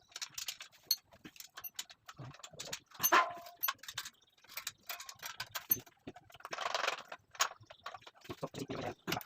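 Metal parts of an angle grinder stand being handled: irregular clicks and knocks, with two brief scraping rustles, one about three seconds in and one near seven seconds.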